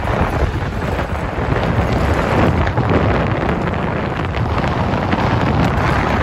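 Wind buffeting the microphone through a moving vehicle's open window, over the low rumble of the vehicle driving on a dirt road.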